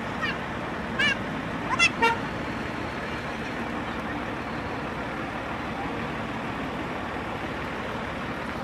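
Steady roadside traffic noise, with a few short warbling horn toots about one to two seconds in, typical of a bus's 'telolet' musical horn.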